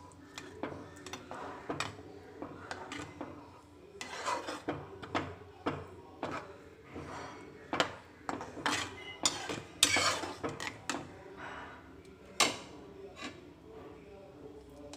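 Spatula scraping and knocking against a nonstick pan while stirring thick gravy, in irregular strokes, loudest about ten seconds in.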